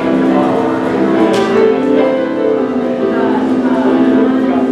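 Live church music with held melodic notes that change pitch every second or so. There is one short click about a second in.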